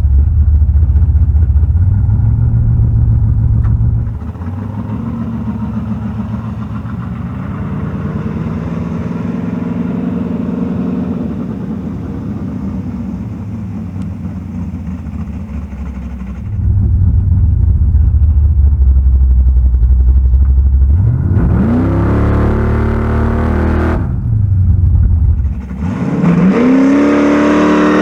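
1974 Chevy Nova's engine on a street run, still cold, fitted with a 3.42 rear gear and 3000 stall converter: a low, loud rumble, a quieter stretch with the revs slowly climbing, then two hard accelerations near the end with the revs rising sharply before dropping back.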